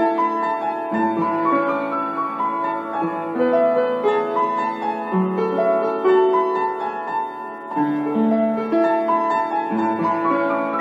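Background piano music: gentle, slow melody with sustained chords.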